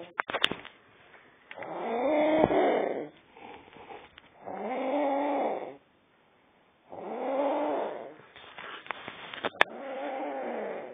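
A woman snoring loudly in her sleep: four long, pitched snores, about one every two and a half to three seconds, each rising and then falling in pitch.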